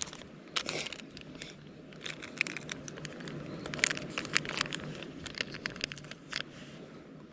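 Crinkling and rustling, with many quick sharp clicks, over a steady low noise.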